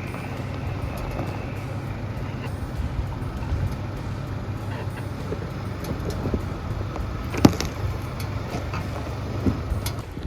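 Pickup truck engine running low and steady as the truck crawls slowly off-road over rough ground, with scattered clunks and one sharp knock about seven and a half seconds in.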